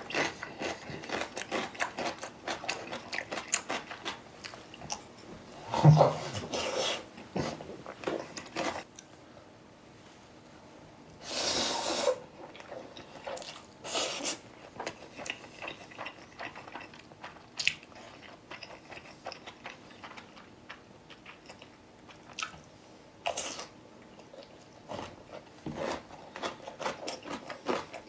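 Close-up eating sounds: steady wet chewing of black bean ramen noodles with crunchy bites, typical of biting into whole pickled radish (danmuji); one loud bite about six seconds in and a longer noisy burst near the middle.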